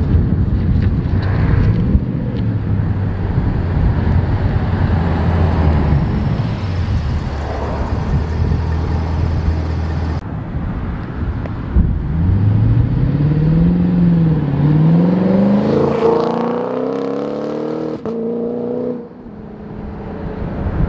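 Lexus RC F's V8, fitted with a valvetronic catback exhaust, accelerating hard: past the middle the engine note climbs, dips briefly at an upshift, climbs again, holds high and cuts off suddenly near the end. Before that there is a steady low engine rumble mixed with wind noise.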